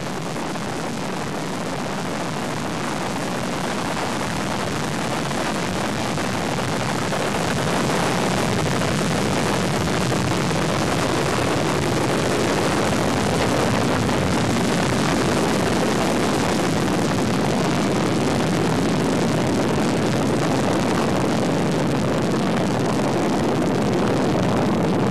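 Soyuz rocket's kerosene and liquid-oxygen engines, its four strap-on boosters and core stage at full thrust just after liftoff: a steady roar of rocket exhaust, growing a little louder about eight seconds in.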